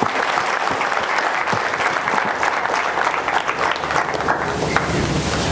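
An audience applauding, a dense, steady clapping from many hands. A low rushing noise comes in underneath near the end.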